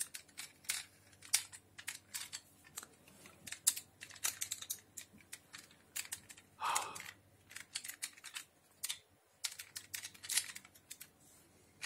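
Quick, irregular clicks and taps of a vintage Optimus Prime toy's plastic and die-cast metal parts being handled and pressed together, with one brief louder rasp about six and a half seconds in.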